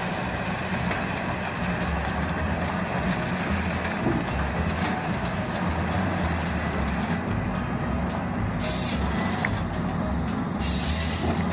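Volvo tracked excavator's diesel engine running steadily while its Waratah 616C harvester head feeds and processes a log, with two short bursts of hiss near the end.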